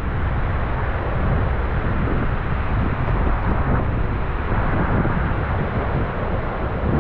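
Steady rushing noise of a river flowing over stones, even throughout with no separate events.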